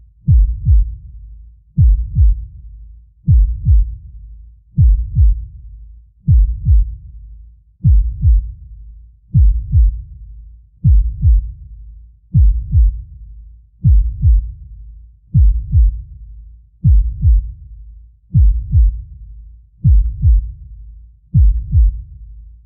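Deep heartbeat sound effect: slow, even lub-dub double thumps about every one and a half seconds, around 40 beats a minute, with a low rumble between beats.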